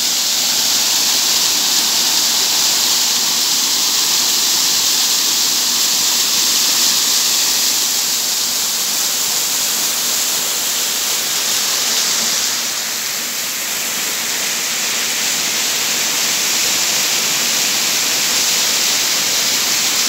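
Small waterfall cascading over rocks: a loud, steady rush of falling and splashing water that softens slightly for a moment past the middle.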